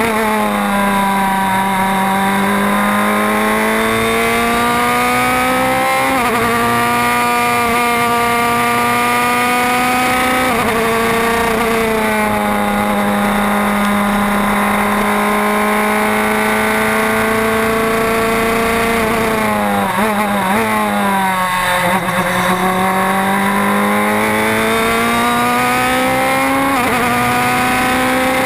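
Onboard engine note of a Norma sports-prototype race car under hard acceleration, its pitch climbing and dropping back at each upshift. About two-thirds of the way through, the pitch falls and wavers as the driver slows and downshifts, then it climbs again.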